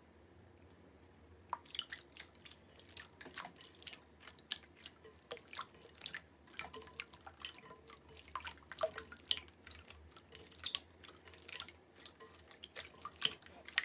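Slime being pressed and worked by hand, making irregular wet clicks and pops, several a second, starting about a second and a half in.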